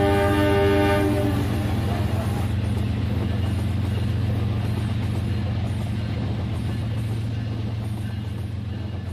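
Toy remote-control train set: its electronic horn sound effect stops about a second in, leaving the steady hum of the small motor running on the track, slowly getting quieter.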